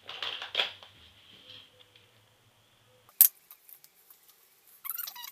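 Plastic makeup containers and tools clattering and rattling as they are rummaged through, with one sharp loud click about three seconds in, like a compact snapping shut. A short burst of rapid light ticks follows near the end.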